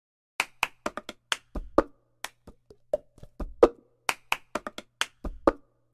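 Cup-game rhythm: hands clapping and a cup tapped and knocked against a tabletop, with a heavier thump of the cup on the table about every two seconds as the same pattern repeats.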